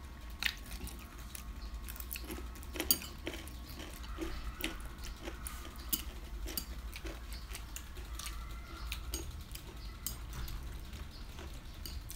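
Eating at the table: irregular clicks and taps of metal chopsticks and a fork against plates, with chewing, over a low steady hum. The sharpest click comes about three seconds in.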